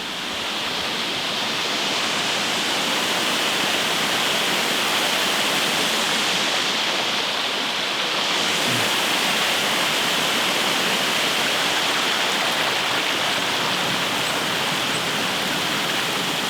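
A small woodland waterfall rushing steadily from close by. It swells over the first couple of seconds, then holds.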